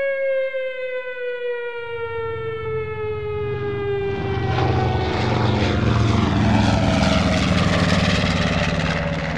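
Civil defence air-raid siren winding down, its pitch falling slowly. About two seconds in, the low drone of aircraft engines comes in, and a rushing noise builds over it from about four seconds in as the siren fades.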